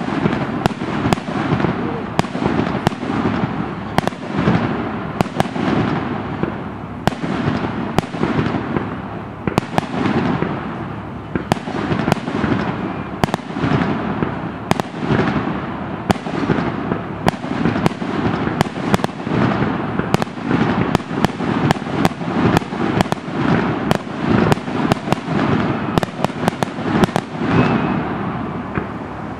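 Fireworks display: aerial shells bursting in quick succession, dozens of sharp bangs each trailing off in a reverberant rumble, with no let-up.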